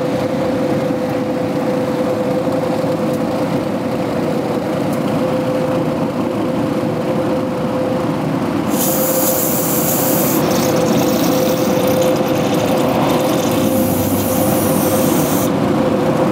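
Electric fan running with a steady hum. From about nine seconds in, an aerosol can of carburetor cleaner hisses for about six seconds as it is sprayed into the carburetor.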